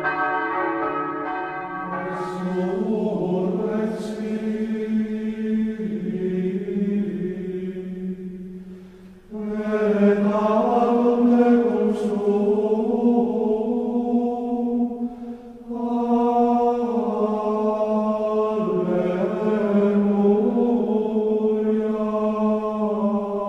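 Slow sung chant: voices holding long notes and moving slowly from pitch to pitch, in phrases broken by short pauses about nine and fifteen seconds in.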